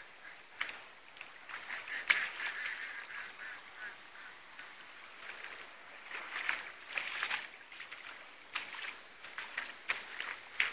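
Geese honking, with a rapid string of calls about two seconds in, then irregular bursts of noise later.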